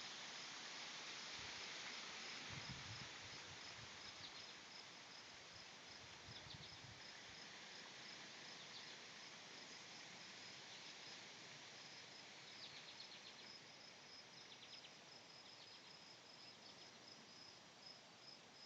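Faint wind rustling through tree leaves, slowly dying down. Over it runs a high, steady pulsing insect trill, with a few short bursts of rapid chirping now and then.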